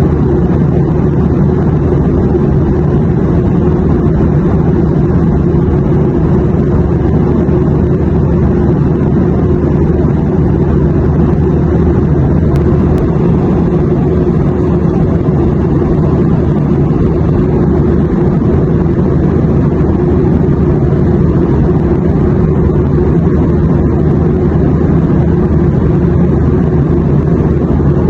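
Airplane noise: a steady, unbroken deep rumble with a softer hiss above it, holding an even level throughout.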